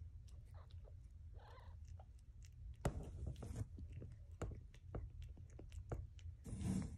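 Mother cat licking a wet newborn kitten clean: soft wet licking and smacking noises with many small clicks, and louder bursts about three seconds in and near the end.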